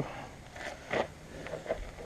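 A few light clicks and knocks of parts and tools being handled, the loudest about a second in.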